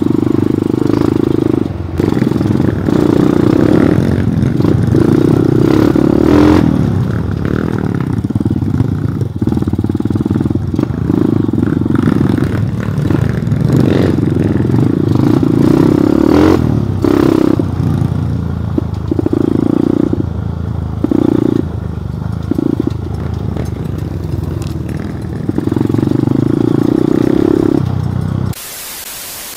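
A trail motorcycle's engine runs over rough ground, the throttle opened and closed again and again so the engine swells and drops every second or two, with a few sharp knocks. Near the end it cuts off suddenly to a steady hiss.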